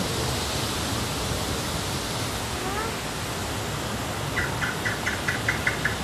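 Steady rushing water on a river-rapids raft ride. Near the end comes a quick run of about eight short, high-pitched pulses.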